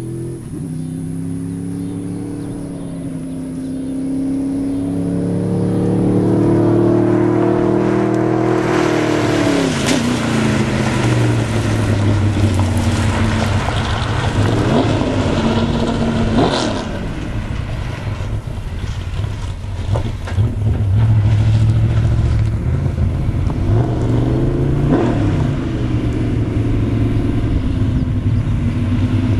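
Camaro GT1 race car's V8 engine accelerating hard, its pitch climbing for several seconds, then running loud with quick rises and drops in revs as the car drives closer.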